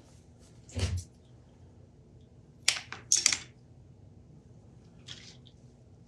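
Small handling sounds of electrical wire and small parts being worked by hand: a soft knock about a second in, a few sharp clicks and rustles near the middle, and a faint click near the end.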